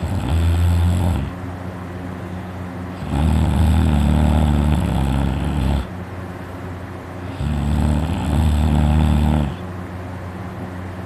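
A person snoring loudly while asleep: three snores in a row about every four seconds, the first brief and the next two lasting two to three seconds each. A quieter steady drone fills the gaps between them.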